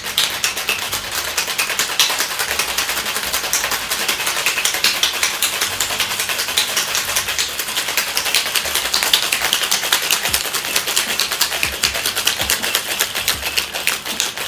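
Ice-machine ice cubes rattling hard inside a metal cobbler shaker in a fast, unbroken, firm shake of an egg-white cocktail.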